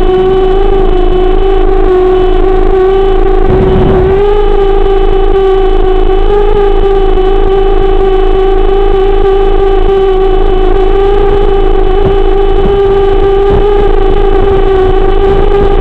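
7-inch FPV quadcopter's motors and propellers running steadily at low hovering speed, a loud, even hum whose pitch wavers slightly, with a brief rush of noise about four seconds in.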